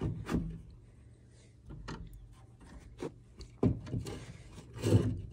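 Light handling noise from hands working around a car's pedal assembly: a few scattered knocks and clicks with some rubbing, the loudest two in the second half.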